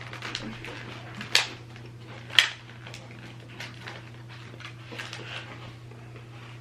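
Scattered crisp crackles and clicks from handling and biting into chocolate-dipped oat cookies, with two sharper cracks about a second and a half and two and a half seconds in, over a steady low hum.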